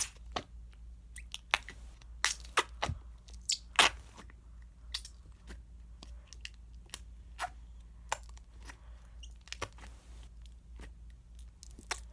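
Slime being squeezed and pushed by hand into a container, giving off irregular crackling pops and clicks as air pockets burst.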